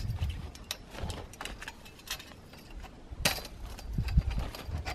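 Metal tent poles clinking and clicking as they are handled and fitted together over the tent fabric, with a sharper metal knock about three seconds in.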